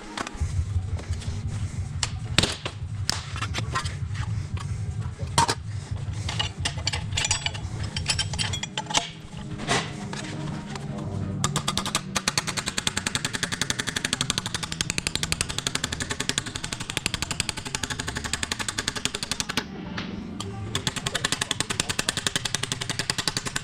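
Irregular knocks and clicks of work on sheet metal, then, about halfway through, a power tool starting a fast, even clatter of rapid impacts on the metal.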